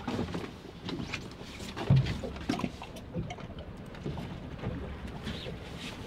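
Water lapping and slapping against a small boat's hull, with scattered small knocks and clicks, and a low thump about two seconds in.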